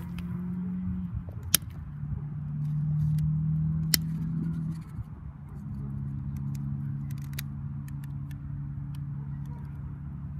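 Sharp clicks of a long-reach butane lighter being triggered at the edge of a paper printout in a fire pit, two loud ones early and a quick cluster later, over a low steady hum that shifts pitch a few times.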